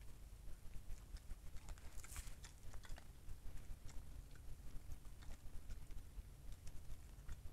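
Wild boar rooting in dry leaf litter: scattered crackles and rustles of leaves and twigs under its snout and feet, with one louder rustle about two seconds in, over a steady low hum.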